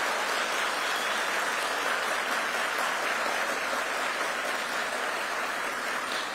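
Audience applause: many people clapping in a steady, even patter that eases slightly toward the end.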